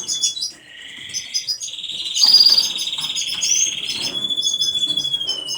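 Canaries singing and chirping. A long rapid trill starts about half a second in and turns into a louder, higher rolling trill around two seconds. It then settles into a held whistled note that drops slightly near the end, over many short high chirps.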